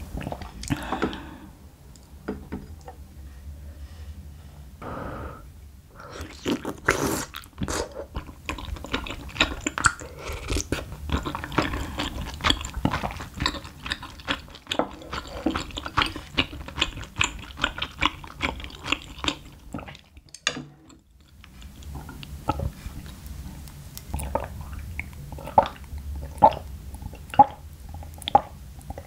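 Close-miked chewing and crunching of food, dense and rapid for much of the time, then sparser. Near the end come several evenly spaced gulps as a glass of milk is drunk.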